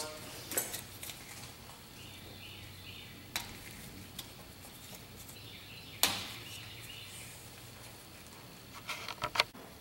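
Small clicks and taps as the rubber dust caps are worked off the slide pins of a BMW E46 rear brake caliper by a gloved hand. A sharp click about six seconds in, and a quick run of clicks near the end.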